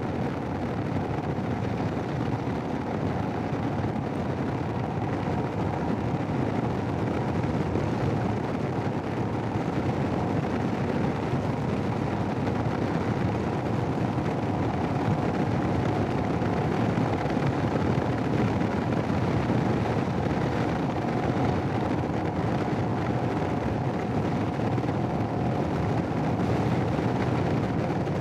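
Steady rush of wind buffeting a helmet microphone, over the running engine of a Royal Enfield Himalayan motorcycle riding at a constant pace.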